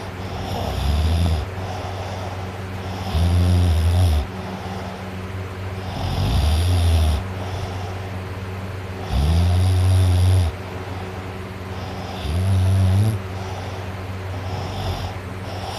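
A teenage boy snoring loudly in heavy sleep: five deep, rasping snores about three seconds apart, each lasting about a second.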